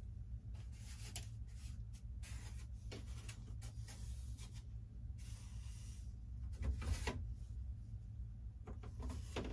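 Faint scattered rubbing and knocking of things being handled, with a louder knock about seven seconds in and another near the end, over a steady low hum.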